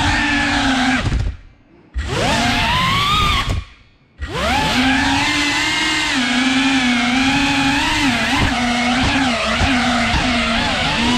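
Cinewhoop FPV drone's brushless motors and ducted propellers whining, a buzzing tone whose pitch shifts with the throttle. Twice, about a second in and again just before four seconds, the throttle is cut and the whine drops away for under a second, then spools back up with a rising pitch.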